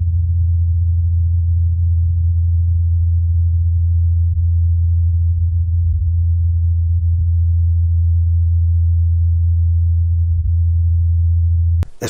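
Rotor blades of the Mars helicopter Ingenuity spinning, recorded through the thin Martian air by the Perseverance rover's microphone: a steady, muffled low hum that cuts off sharply near the end.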